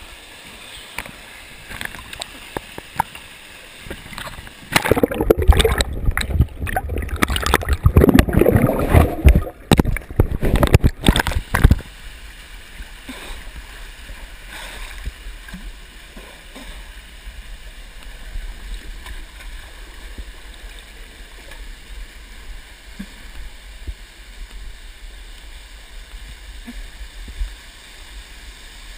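Close splashing and churning of water for several seconds as a swimmer moves through a rock pool beneath a small waterfall. After that comes the steady rush of the waterfall pouring into the pool, with a few faint knocks.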